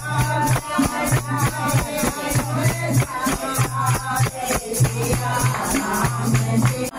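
Hindu devotional singing with jingling hand percussion keeping a steady beat and a low note pulsing about once a second.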